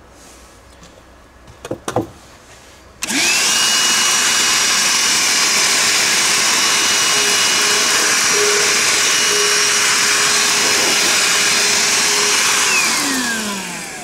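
Einhell TE-VC 18 Li 18 V cordless handheld vacuum switched on about three seconds in, running steadily with a high whine while sucking up small debris, then switched off near the end, its motor winding down with falling pitch. A couple of light handling knocks come before it starts.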